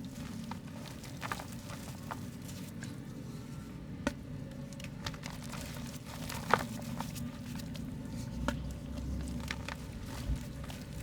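Soft mud being crumbled, with irregular crisp crackles and snaps, the loudest about six and a half seconds in, over a steady low hum.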